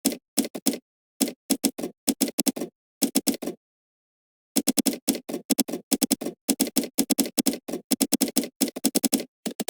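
Computer keyboard typing: quick runs of keystrokes in irregular bursts, with pauses of up to about a second between them, and the typing stops just at the end.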